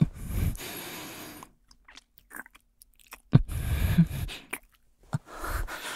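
Close-miked breaths and wet mouth sounds from a man's voice, coming in three breathy bursts with small clicks and smacks at their starts.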